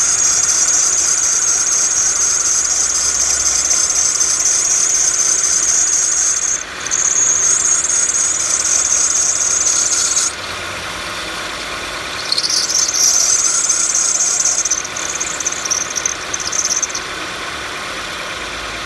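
Engine drive belt squealing loudly and high-pitched over the running engine. The squeal cuts out abruptly about ten seconds in as water is squirted onto the belt, comes right back a couple of seconds later, then breaks up and dies away. Water silencing it marks the belt itself as the cause: an old, cracked belt made sticky with belt dressing.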